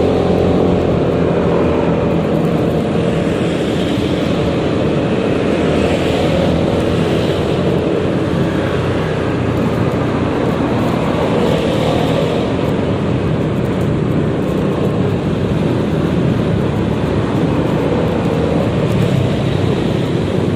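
Riding a Yamaha XMAX 300 scooter in traffic: steady wind and road noise on the rider's mic, with the engine running underneath and its pitch drifting slightly up and down.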